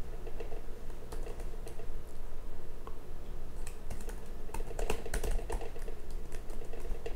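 Keystrokes on a computer keyboard, typing a sudo password in two short runs: the first entry is rejected and the password is typed again about four seconds in. A steady low hum lies underneath.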